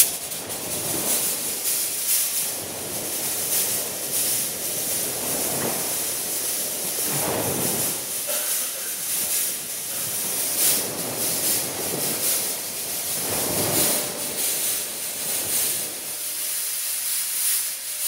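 Stage fog machine spraying with a loud, steady hiss that starts suddenly. Gusty whooshes rise and fall every few seconds.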